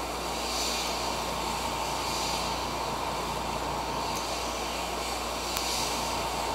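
Airbrush spraying black paint at low air pressure, about 6 psi: a steady hiss of air that swells louder a few times as the trigger is pulled back harder.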